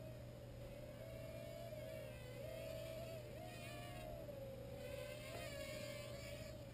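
Traxxas QR-1 mini quadcopter's four electric motors and propellers whining faintly, the pitch wavering up and down as the throttle changes.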